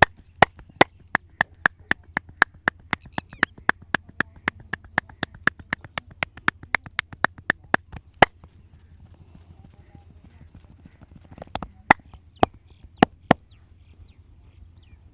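Percussive massage strokes: hands striking rapidly and evenly on the head or back, about four sharp slaps a second for some eight seconds. After a pause, five more single strikes come at about two a second.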